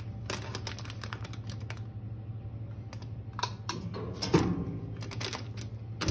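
Rapid irregular clicking and crinkling of a plastic bag being fitted and held against the steel chute of a powder weighing-and-filling machine, pausing briefly midway. A steady low hum runs underneath.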